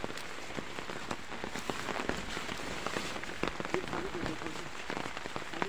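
Light rain pattering on leaves as a steady hiss full of small drop ticks, mixed with the swish of wet undergrowth brushed by someone walking through it.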